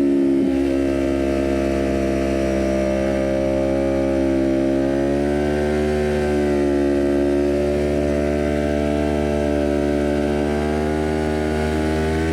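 Kawasaki Ninja 400's parallel-twin engine through a full aftermarket exhaust with the catalytic converter removed, running at a steady, moderate speed under light throttle. Its pitch drifts gently up and down.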